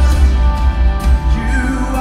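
Live band playing amplified music in an arena: electric guitars, drums and keyboard over a heavy, pulsing bass, heard from the audience seats.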